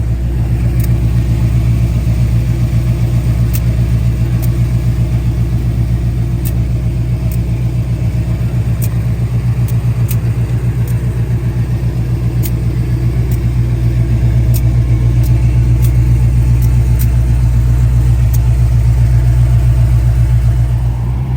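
Car engine idling steadily, its exhaust pulsing evenly.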